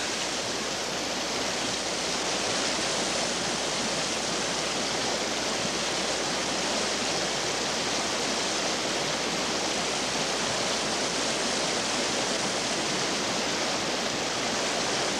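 Flowing water rushing steadily, an even noise without breaks or distinct splashes.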